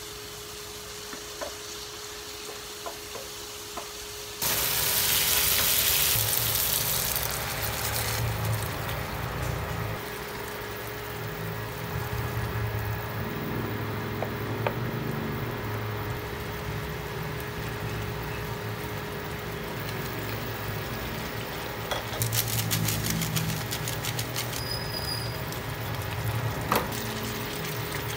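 Food sizzling and simmering in a frying pan on an induction cooktop, stirred with a wooden spatula. About four seconds in, the sizzle jumps suddenly to a loud hiss, then settles back to a steadier simmer, with the spatula clicking against the pan.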